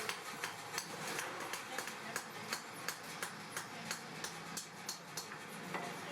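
Light hammer blows on metal, about three a second in a fairly even rhythm, over a steady background hiss.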